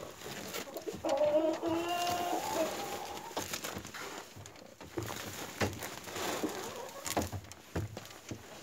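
A hen's drawn-out call about a second in, lasting nearly two seconds, then scattered rustling and crinkling of a woven plastic feed sack as a cat pushes into it.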